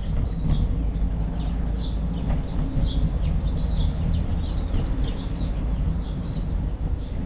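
Birds chirping, many short, irregular high chirps, over a steady low rumble of wind and road noise from riding a bicycle.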